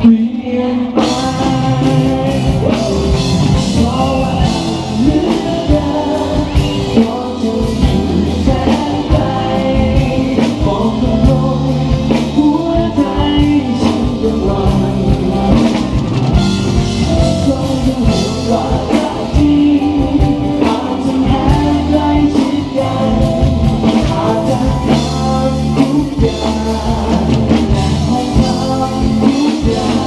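Live band playing a song with a man singing lead into a microphone, over drum kit, electric bass, electric guitar and keyboard.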